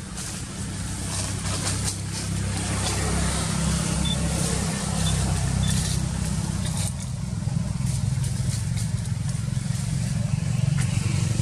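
A steady low engine rumble, like a vehicle running nearby, slowly growing louder, with faint scattered clicks over it.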